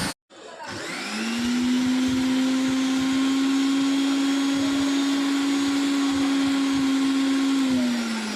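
Mixer grinder's brushed motor, fitted with a new armature, switched on: it spins up over about a second to a steady high whine, then starts to wind down near the end. It runs cleanly with its sparking gone, the earlier sparking having come from a shorted armature.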